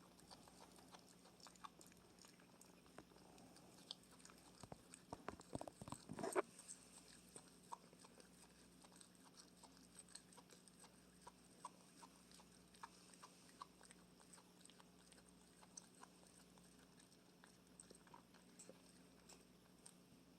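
Opossum chewing and biting its food: faint, scattered clicks and crunches, with a denser, louder run of them about five to six seconds in.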